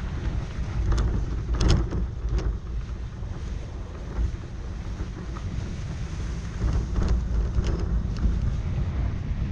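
Wind buffeting the microphone with a heavy low rumble. A few short sharp clicks come through it, a cluster about a second in and another around seven seconds.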